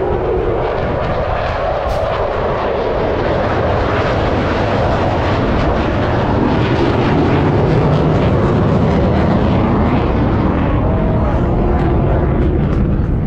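Loud jet noise from an F-35 Lightning II's single F135 turbofan engine in flight, a dense, steady noise with drifting pitch that grows a little louder about halfway through.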